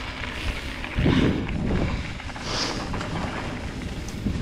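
Wind buffeting the action-camera microphone over the rumble of a mountain bike rolling on a dirt trail, with a louder surge about a second in.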